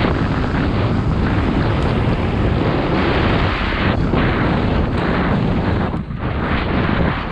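Heavy wind noise buffeting the camera microphone of a mountain bike riding fast downhill, mixed with the tyres rumbling over a loose gravel track.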